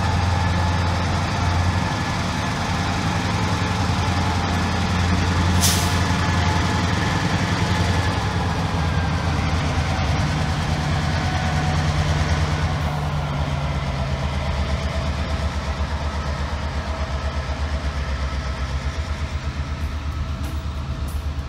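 Two CSX diesel-electric locomotives pass at low speed with their engines droning steadily, pulling hopper cars. A short sharp hiss comes about six seconds in, and near the end the car wheels click over the rail joints in a steady rhythm.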